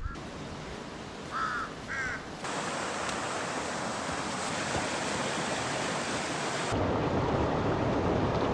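Steady hiss of falling rain. The noise shifts abruptly twice, near the third second and again near the seventh, and two short high calls sound about one and two seconds in.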